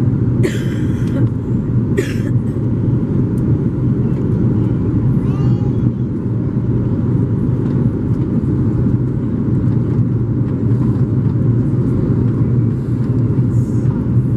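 Steady cabin noise of an Airbus A330-300 airliner on descent: engine and airflow roar, heaviest in the low range with a constant low hum. Two short sharp noises in the first two seconds and another near the end stand out over it.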